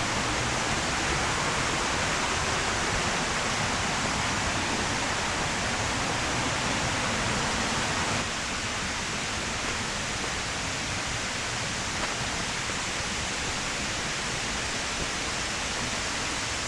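Waterfall water rushing steadily, a little quieter from about eight seconds in.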